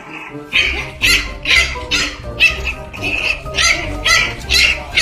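A dog barking over and over, about two barks a second, with background music carrying a steady low bass.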